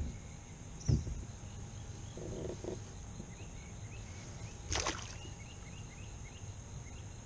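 Steady high-pitched drone of insects over the lake. About a second in there is a single knock on the kayak, and a little before five seconds there is a short splash beside the hull, with faint chirps around it.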